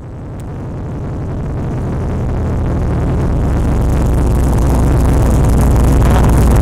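A car engine running with a steady low note, growing steadily louder throughout.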